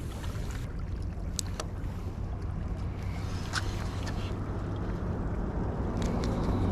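Wind rumbling on the microphone, with a few light clicks from a spinning reel as a metal jig is cast and the reel is cranked back in.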